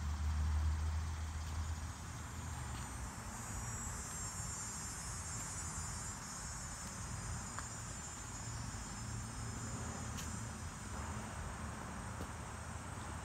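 Insects chirring in a steady high-pitched chorus, strongest from about four to nine seconds in. A low rumble in the first two seconds is the loudest part, and a few faint clicks come through.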